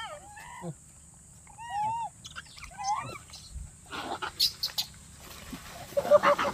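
Rhesus macaques calling: several short pitched squeals that rise and fall in the first three seconds, then harsher, noisier calls from about four seconds in, the loudest burst near the end.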